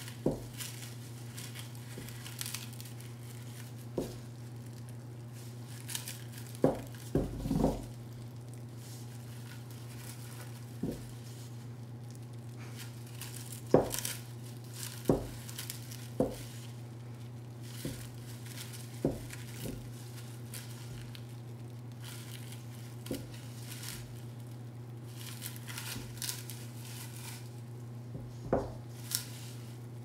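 Kitchen work sounds while preparing butter cookies: scattered knocks and clinks of bowls and utensils, with some crinkling, over a steady low hum.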